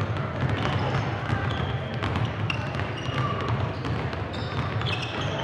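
Several basketballs dribbled at once on a hardwood gym floor, their bounces overlapping in an uneven patter, with short high sneaker squeaks over a steady low hum.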